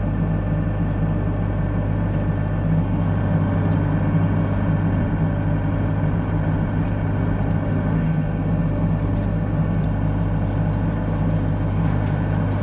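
Mini excavator's diesel engine running steadily under work, heard from inside the operator's cab, with a constant low hum.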